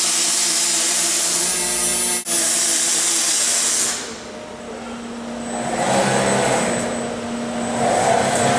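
Robotic MIG welding arc crackling and hissing steadily for about four seconds, with a brief break a little after two seconds, then cutting off. A quieter, lower machine noise swells afterwards over a steady low hum.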